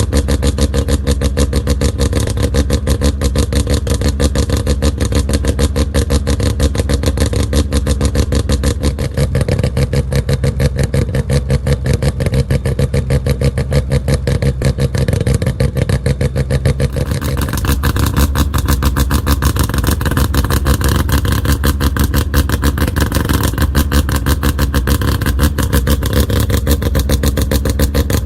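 An engine running steadily with a rapid, even pulse. About two-thirds of the way through its tone changes abruptly and it becomes brighter.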